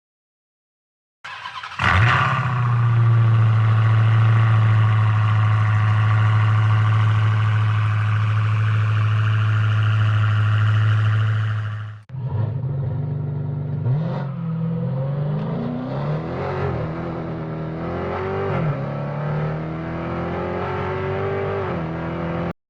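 Car engine starting about a second in and idling steadily, then after a cut about halfway through, revving up and down repeatedly until it stops abruptly.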